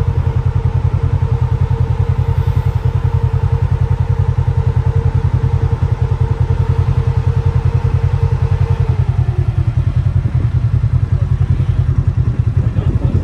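Side-by-side UTV engine idling close by with a loud, steady, fast low pulse. Over it, another utility vehicle's engine drives away, its steady whine dropping in pitch and fading about nine seconds in.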